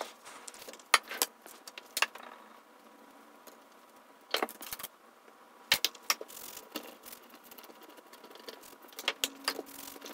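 Scattered sharp clicks and taps from handling tools and a circuit board in its metal chassis, several in quick clusters, with rustling from a crumpled paper towel wiping flux off the board.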